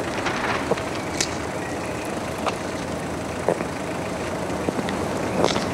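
Steady street background hum like distant traffic, with a few soft footsteps as someone takes some slow paces.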